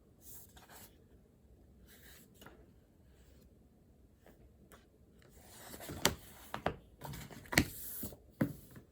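Quiet room tone, then from about five and a half seconds in a rustle of handling with several sharp clicks and taps, as of things being moved about on a study desk.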